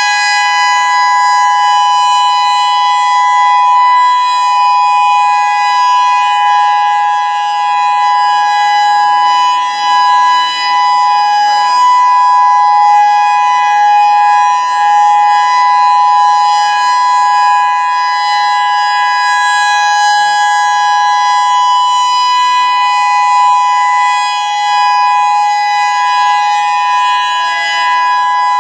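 Federal Signal EOWS 612 electronic outdoor warning siren sounding its steady alert signal: a loud tone of two pitches held together, with no rise or fall in pitch and only slight swells in loudness.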